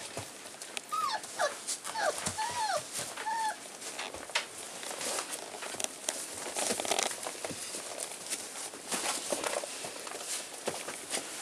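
Rough collie puppies about five weeks old at play: a quick run of short, high whimpers in the first few seconds, then scuffling and small taps of paws and toys on the pen floor.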